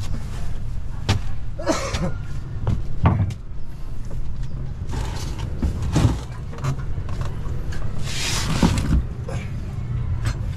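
A series of irregular knocks and clunks, with a few short scrapes, over a steady low rumble.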